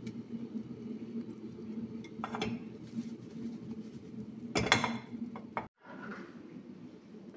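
Spatula and nonstick frying pan clattering as an omelette is turned out onto a ceramic plate: a short clatter about halfway through and a louder one just before the end, over a steady low hum.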